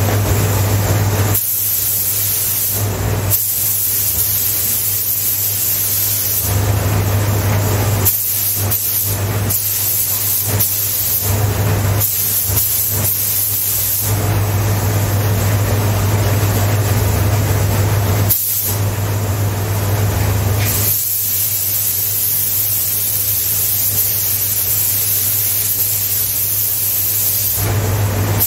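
Paint spray gun hissing in spells of a few seconds as the trigger is pulled and released, over the steady low hum of the paint booth's exhaust fan.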